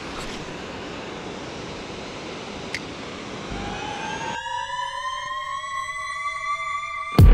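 Steady rush of wind and water noise, then a smoothly rising, whistle-like transition effect that swells over the last few seconds. The background drops away about halfway through, and the effect ends in a sudden loud hit as music begins.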